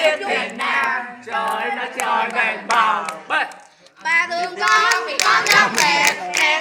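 A group of voices singing together with rhythmic hand clapping. The sound drops out briefly just before four seconds in, then the singing resumes with steady clapping at about three claps a second.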